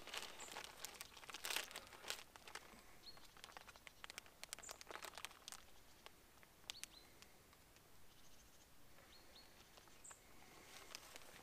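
Faint, irregular crinkling and rustling, heaviest in the first couple of seconds and again around the middle, with a few short high bird chirps.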